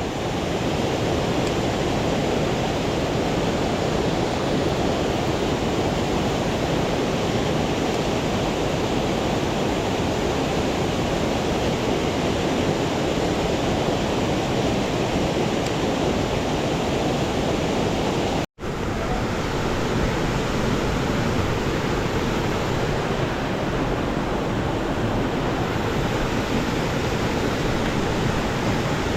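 Mountain stream rushing steadily over rocks, a dense even wash of water noise, with a momentary cut-out of the sound about two-thirds of the way through.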